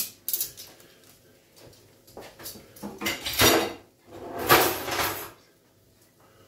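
Kitchen things being handled and cleared from a table: light knocks near the start, then two louder bursts of handling noise, about three and about four and a half seconds in.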